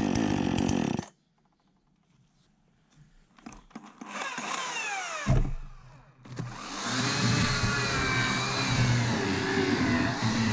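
A Husqvarna 135 two-stroke chainsaw runs at high revs and cuts off suddenly about a second in. After a quiet gap, a Florabest FKS 2200 electric chainsaw whirs and saws through a log from about six seconds in, its pitch wavering under load.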